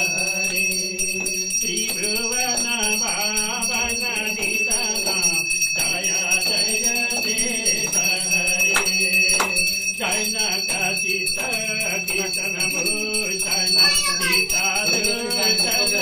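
Puja hand bell ringing steadily through the aarati, over a group of voices singing a devotional hymn.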